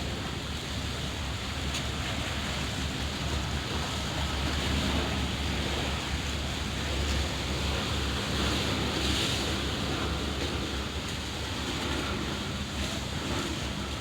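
Sea waves washing on the shore, a steady rushing noise that swells and eases a little, with wind buffeting the microphone in a low rumble.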